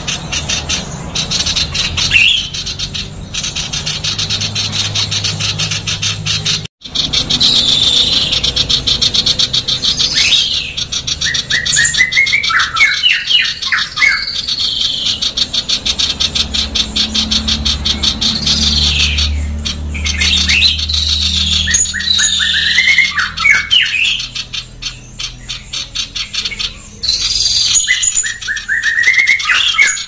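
Female common iora calling: a fast, dense, harsh rasping chatter, broken three times by short runs of stepped falling notes.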